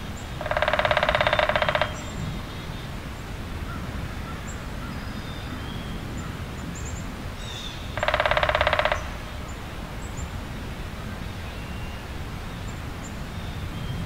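Outdoor natural soundscape: a loud, rapidly pulsed animal trill sounds twice, each lasting one to one and a half seconds and about seven seconds apart. Faint high bird chirps are scattered between them over a steady low rumble.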